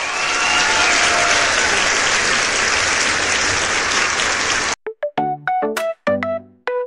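Crowd applause of many hands clapping, with a brief cheer near the start, which cuts off abruptly about five seconds in. A melody of short keyboard notes follows.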